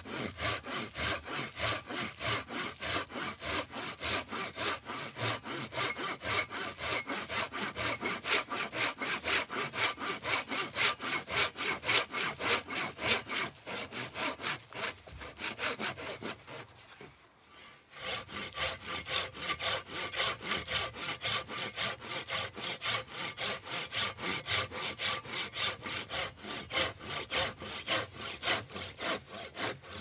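Handsaw cutting through wood in rapid, even back-and-forth strokes, about three a second. About halfway through, the strokes soften and stop for a moment, then start again.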